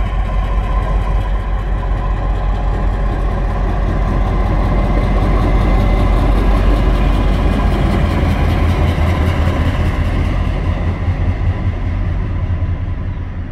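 TasRail DQ-class diesel-electric locomotive 2006 running light engine, with no wagons. Its diesel engine rumbles as it passes, growing louder to a peak about halfway through, then fading near the end.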